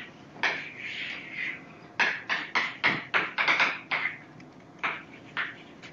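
Chalk drawing on a blackboard: a longer scraping stroke near the start, then a quick run of short strokes and taps as lines are drawn, with two more taps near the end.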